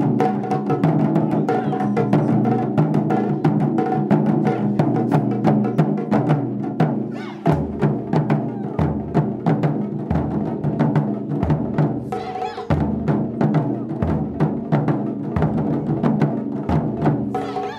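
An ensemble of Japanese taiko drums struck with wooden sticks: a dense, fast run of drum strikes. About halfway through, deep low booms join at a steady beat.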